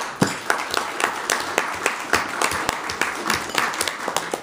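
Audience applauding, many hands clapping irregularly.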